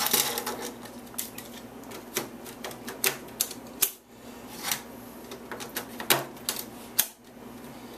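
Dell PowerEdge 2850 server's plastic cooling-fan modules being pressed into their slots in the chassis by hand: irregular sharp plastic clicks and knocks as the fans seat and snap into place.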